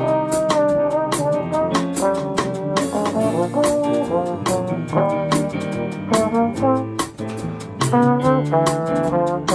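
Jazz trombone playing the melody over piano, upright bass and drums, with a steady beat of drum strokes underneath.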